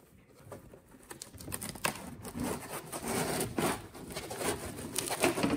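White packing foam squeaking and scraping against the printer's housing as it is wrestled out, a run of irregular rubs and squeaks that grows louder after about a second.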